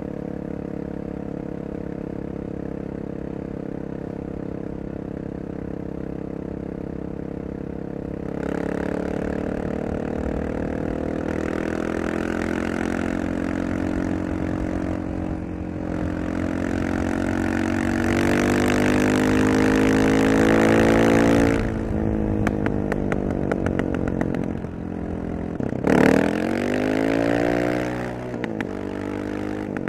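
Honda XR650R supermoto's single-cylinder four-stroke engine under way: steady at low revs, then about eight seconds in the throttle opens and the revs climb for over ten seconds before it shuts off suddenly. Crackling pops follow on the overrun, then a quick rev that falls away, and more pops near the end.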